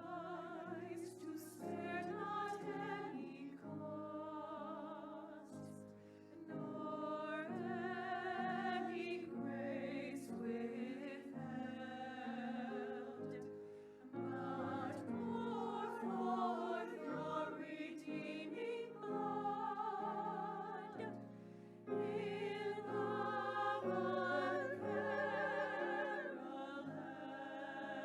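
Slow sacred choral music: voices singing with vibrato over held accompanying notes, in long phrases with brief pauses between them.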